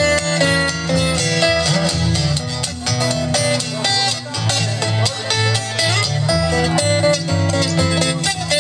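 Instrumental break of a live blues song: guitars picking quick notes over low, sustained bass notes.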